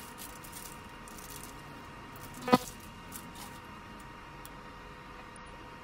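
Quiet kitchen background with a faint steady hum and a few faint crackles, and one short tap with a brief ring about two and a half seconds in.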